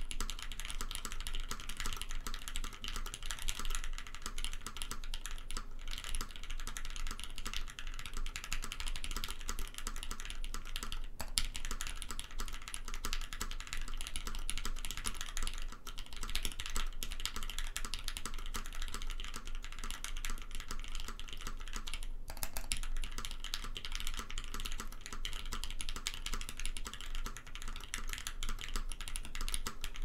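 Steady, fast typing on a custom mechanical keyboard built with Gateron Ink switches lubed with Krytox 205g0, a UHMWPE plate, a zekk.works Ogre case and GMK keycaps, with a couple of brief pauses.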